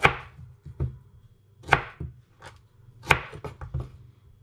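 Chef's knife cutting through raw sweet potatoes and knocking on a wooden cutting board: three loud chops about one and a half seconds apart, with lighter knocks between them.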